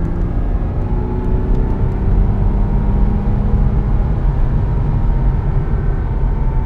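Porsche 987.1 Cayman S's flat-six engine pulling under acceleration, its throaty note climbing steadily in pitch as the revs rise, over a heavy low rumble.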